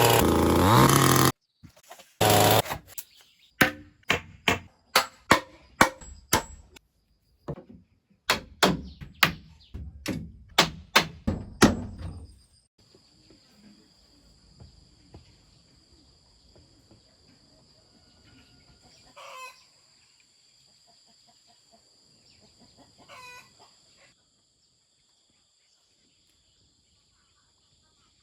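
A string of sharp knocks, about one or two a second, gives way to a steady high insect trill. A rooster crows twice over the trill. A short loud burst of noise opens.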